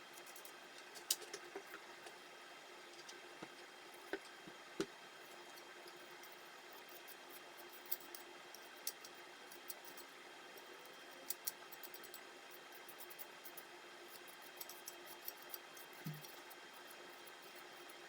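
Scattered faint clicks and ticks of small parts and tools being handled during laptop disassembly, over a steady faint hum, with one soft low thud near the end.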